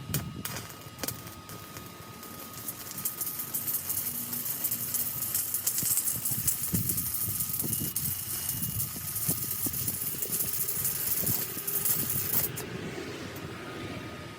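Stick-welding arc from a small Hitbox IGBT inverter welder, crackling and sizzling for about twelve seconds. It strikes abruptly and cuts off sharply near the end.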